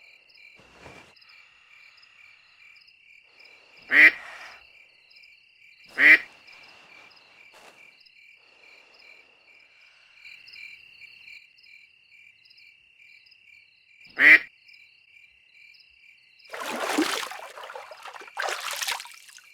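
Steady cricket chirping, with a cartoon duck quacking three times, each quack short and spaced seconds apart. Two longer, noisier bursts follow near the end.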